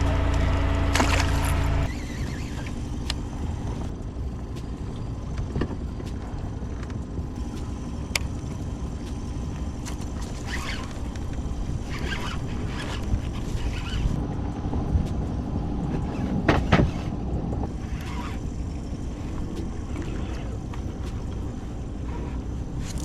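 A steady motor hum for about the first two seconds, cut off suddenly. Then low rumbling water and wind noise on a kayak, with scattered light clicks and knocks.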